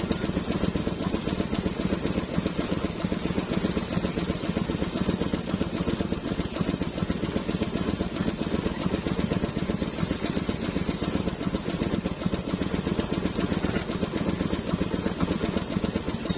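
A small boat engine running steadily at low revs with an even drone and no change in speed.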